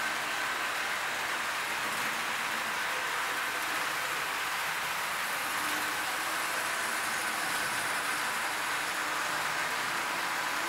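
Model train running: a steady hiss of small wheels rolling on model track with a faint, even motor whine, as a model electric locomotive hauls a long string of tank wagons.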